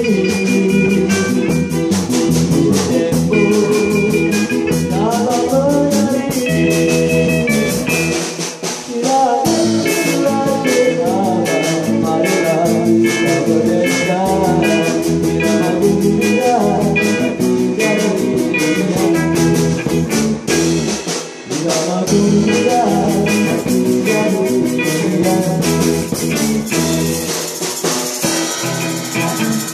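A live rock band plays a song, with electric guitars, bass guitar and drum kit, and a lead melody and singing on top. The bass drops out briefly twice, about a third and two thirds of the way through.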